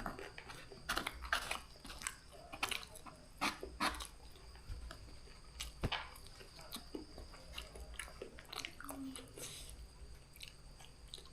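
Close-up mouth sounds of a person chewing spicy Mie Gacoan noodles: irregular wet smacks and clicks, coming thickly at first and thinning out over the last few seconds.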